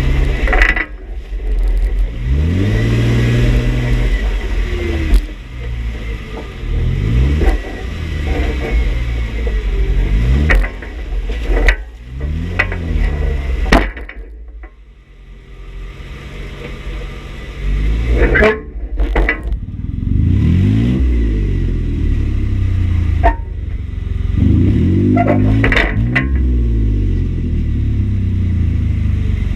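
Jeep engine revving up and down again and again under load as it crawls over rough trail, with sharp knocks and clunks now and then. It eases off to a low idle for a few seconds around the middle, then revs again.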